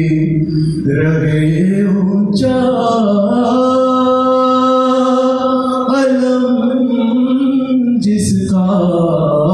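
A young man sings a Muharram devotional recitation solo, without accompaniment, into a microphone. His voice stretches into long, slowly wavering held notes, with one note sustained for several seconds from about two and a half seconds in.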